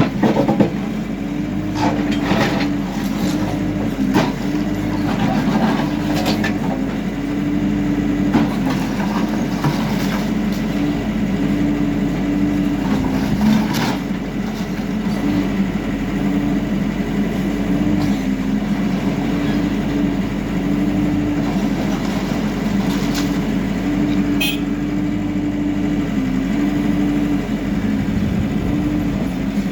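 Hidromek backhoe loader's diesel engine working steadily, its pitch stepping up and down as the hydraulics are loaded, with scattered knocks and clanks of the bucket against rubble during a building demolition.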